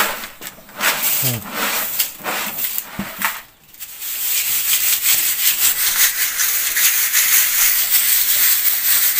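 Dry grit poured from a bucket into a round wooden-rimmed sieve, then shaken through it: a steady, dry rattling hiss of the sifting that starts about four seconds in.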